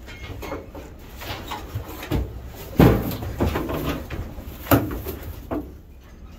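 Knocks and thumps of a plastic feed bucket being handled against wooden barn rails, with rustling in between. The loudest knocks come about three seconds in and again near five seconds.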